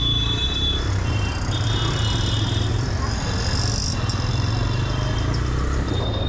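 Motorcycle riding slowly through heavy city traffic: a steady low engine and road rumble, with high steady tones coming and going over it, about a second at a time.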